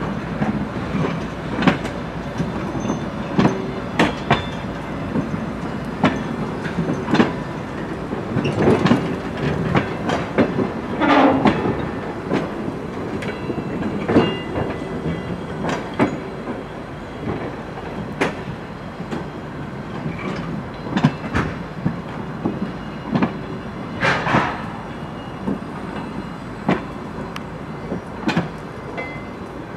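Towed DR1A diesel multiple unit cars rolling slowly past on jointed track. Their wheels clack irregularly over rail joints and points over a steady rumble, with a few louder screeching knocks from the running gear.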